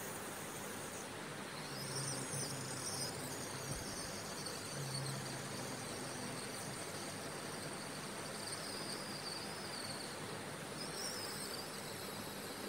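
Faint high-pitched insect trilling, which comes and goes over a steady background hiss.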